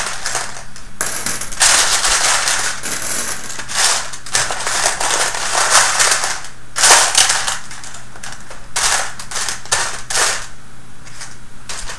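Loose plastic construction-kit pieces clattering in repeated bursts as hands rummage and sift through a spilled pile of parts.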